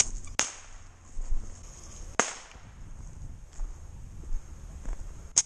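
Bottle rockets bursting: about four sharp pops, two close together at the start, one about two seconds in and one near the end.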